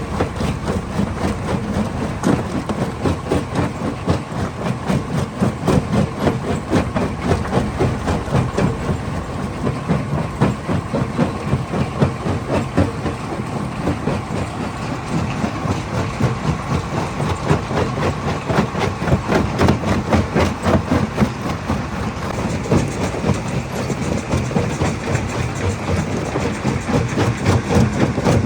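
Stone crusher running under load: a dense, continuous clatter of rock being struck and broken over the low rumble of the machine.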